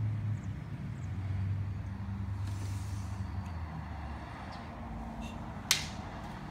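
Wooden practice sword (bokken) cutting through the air with a faint swish, over a steady low hum. One sharp click comes near the end.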